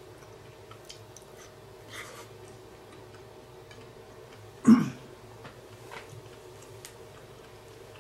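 A person eating quietly: faint clicks and chewing over a steady low hum. One short, loud sound comes a little past halfway through.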